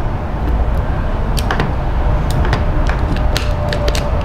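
Several light clicks and taps of paintball marker parts being handled and fitted together, over a steady low rumble.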